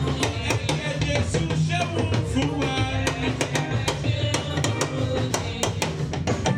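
Live church music: drums keep a steady beat under bass, guitar and voices singing.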